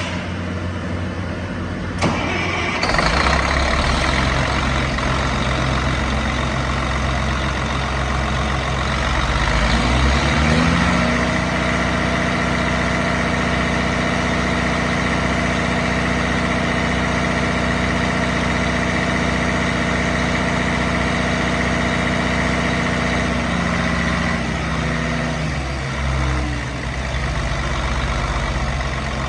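Caterpillar 3176C inline-six diesel engine of a 345B II excavator starting up about two seconds in and settling to idle. Around ten seconds in it rises to a higher, steady speed, then drops back to idle a few seconds before the end.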